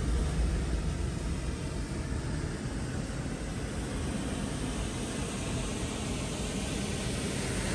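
Steady road and engine noise heard inside a moving car's cabin: a low rumble under an even hiss.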